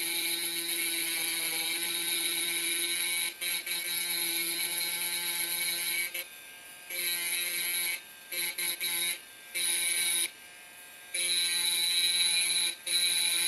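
Diamond-tipped rotary engraving handpiece grinding into a drinking glass, a steady high-pitched whine. It breaks off briefly several times in the second half and resumes each time.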